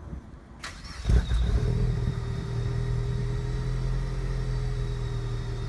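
Supercharged NC Mazda Miata's four-cylinder engine starting about a second in, with a brief burst of revs as it catches, then settling into a steady idle through its exhaust.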